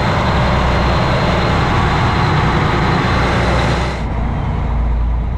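Steady low rumble with a loud rushing hiss, as of a sportfishing boat underway: engine drone with wind and water noise. About four seconds in, the hiss drops away abruptly, leaving the rumble.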